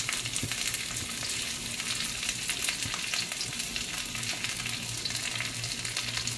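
Wet, freshly squeezed jute mallow (molokhia) leaves sizzling and crackling in hot ghee in a nonstick wok. The sound is a steady dense sizzle with many fine pops, as water left in the leaves spits in the fat.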